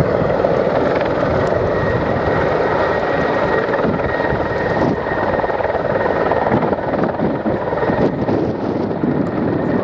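Mil military helicopter's twin turbine engines and rotor running steadily, with a thin high turbine whine over the rotor noise.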